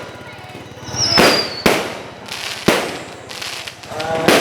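Fireworks display: four sharp bangs of aerial shells bursting over about three seconds, each followed by a fading rumble, with a short falling whistle just before the first bang.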